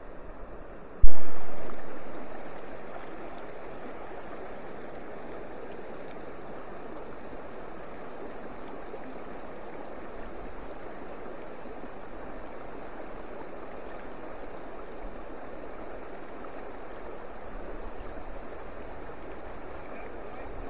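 Shallow rocky stream running over stones in a riffle, a steady rushing of water. A single low thump about a second in.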